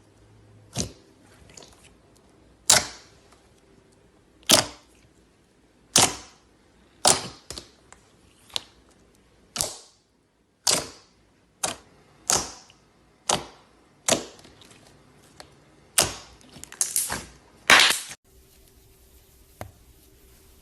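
Slime squeezed and crushed by hand, giving a string of sharp pops and crackles about once a second. They stop near the end.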